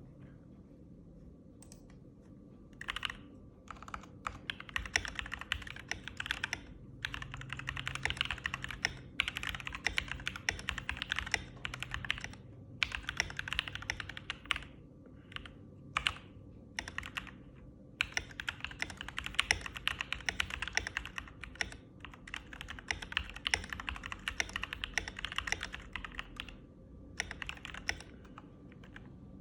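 Typing on an FL Esports MK870 mechanical keyboard with Jwick Yellow linear switches, stock stabilizers and Cherry-profile keycaps. Fast runs of keystrokes start about three seconds in, broken by short pauses.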